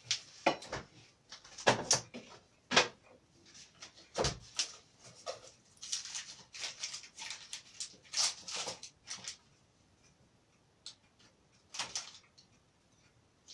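Pot of lazy vareniki (curd dumplings) at a rolling boil, the starchy water foaming up close to boiling over, with irregular pops and sputters that thin out after about nine seconds.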